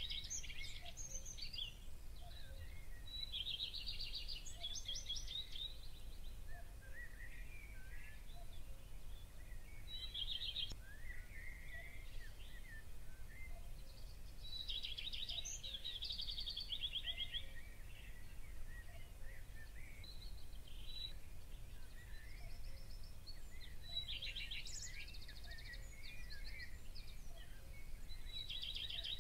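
Songbirds singing: high, rapid trilled phrases every few seconds with softer chirps between, over a steady low rumble.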